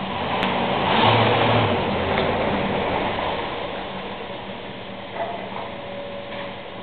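An engine running, swelling louder about a second in and then slowly easing off.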